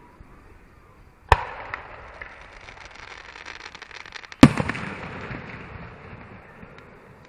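Aerial fireworks shells bursting: a sharp bang about a second in, then a stretch of rapid crackling, then the loudest boom a little past four seconds, which echoes away.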